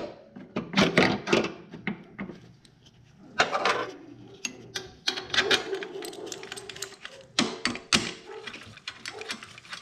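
Hand socket ratchet clicking in quick runs on a motor mount bolt, with metal clinks and knocks of the tool and bracket.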